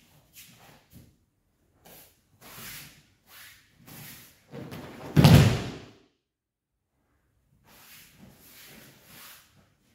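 A judoka thrown in a judo kata lands on the tatami mat in a breakfall: one heavy slap and thud about five seconds in, the loudest sound. Soft shuffles of bare feet and rustling judo jackets come before it and again near the end.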